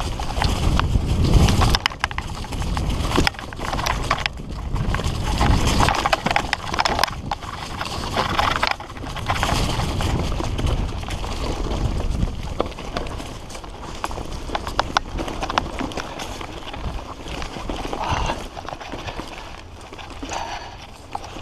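Fully rigid Redline Monocog singlespeed mountain bike running fast down rough dirt singletrack: the tyres rumble over the ground while the unsuspended bike rattles and clatters with a steady run of sharp knocks, under a low rumble on the camera microphone.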